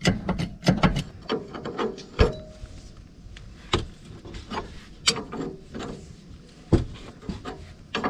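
Steel spanners clicking and knocking on a bolt and metal fittings under a vehicle while a brake part is being taken off. A quick run of clicks in the first second, then scattered single clicks and knocks.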